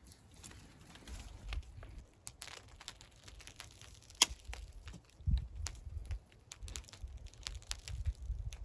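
Small hail pellets ticking on a tarp and the ground: scattered, irregular light clicks, several a second, over low rumbling on the microphone.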